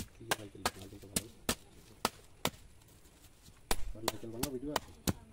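Dao (machete) blade chopping into a coconut's fibrous husk: a run of sharp chops, about three a second. They pause for about a second midway, then a few more strikes follow.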